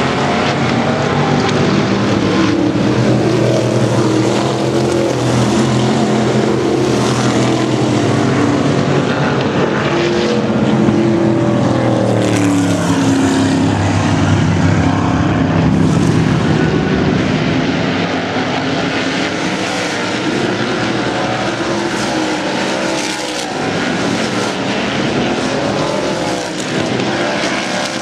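Several race car engines running at speed on an oval track, their overlapping tones rising and falling as the cars pass, with a few sweeping pitch changes as cars go by.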